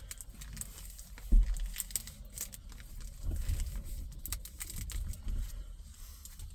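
A plastic salad-dressing packet crinkling as it is handled and squeezed, with scattered small clicks and rustles and one dull thump about a second and a half in.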